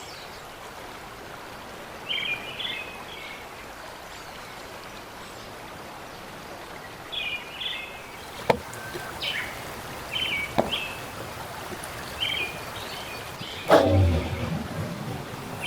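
Outdoor ambience by a river: birds chirping in short bursts every few seconds over a steady rush of flowing water, with two sharp clicks and a louder thump near the end.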